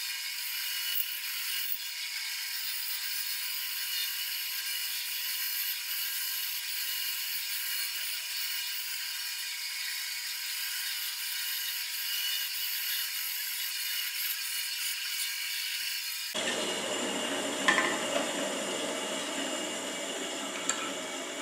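Bandsaw blade cutting through a redwood block, a steady high hiss. About 16 seconds in the sound abruptly turns fuller and lower, with one sharp knock about 18 seconds in.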